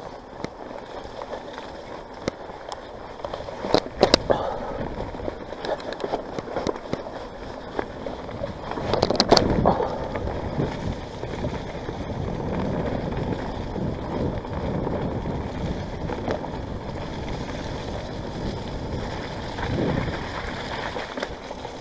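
On-One Parkwood mountain bike riding a wet, flooded trail, its tyres splashing through water and mud. There are sharp knocks and jolts from the bike about four and nine seconds in, the second the loudest.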